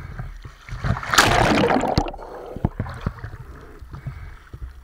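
A splash of water about a second in, lasting about a second, over a steady low rumble.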